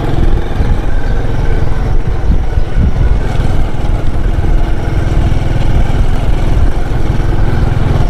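Motorcycle engine running steadily while riding along, with heavy wind rumble on the microphone.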